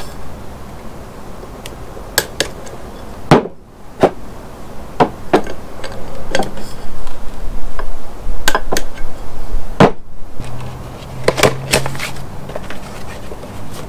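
Steel oil filter canisters and hand tools being handled and set down on a wooden workbench: a string of separate sharp clacks and knocks over a low rumbling background noise.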